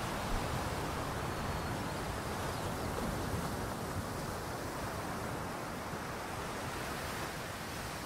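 Sea surf: a steady, continuous wash of waves on the shore.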